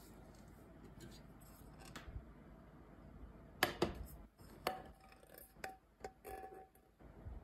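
Glass pot lid and ceramic-coated aluminium pot knocking together as the lid is lifted off and the pot handled: about halfway in a sharp clink, then three or four lighter taps, some with a short ring.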